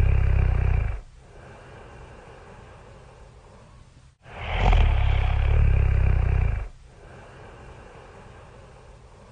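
Loud snoring, repeating evenly: a rumbling snore ends about a second in, a quieter breath follows, and the next rumbling snore comes at about four seconds and lasts about two and a half seconds before the quiet breath returns.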